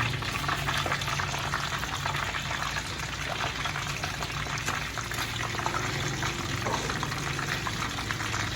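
Hot oil sizzling and crackling steadily around fish deep-frying in a pan, over a steady low hum.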